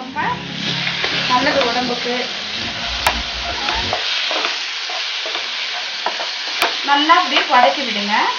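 Chopped onions and spice powders sizzling in oil in a nonstick pan while being stirred with a wooden spatula.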